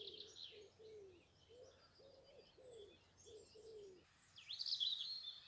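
Faint woodland birdsong: a low call repeated in short arched notes about twice a second, with thin high songbird chirps above it. A louder, higher bird phrase comes in about four seconds in.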